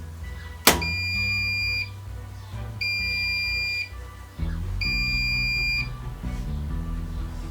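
An electronic appliance beeper sounding three long, steady, high beeps about two seconds apart, just after a sharp click, over background music.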